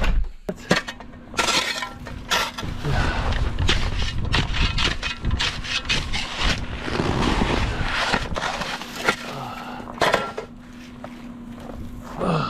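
Small snow shovel chopping and scraping into packed, crusted snow: a run of irregular crunching, cracking strokes.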